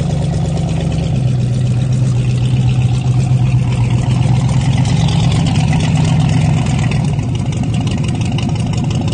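Ford Model A's four-cylinder engine idling, a steady low hum that shifts slightly in pitch about a second in and again near the end.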